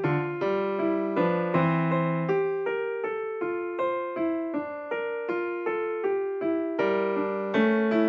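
Background music: a gentle piano melody of evenly paced notes, each struck and fading, about two to three a second.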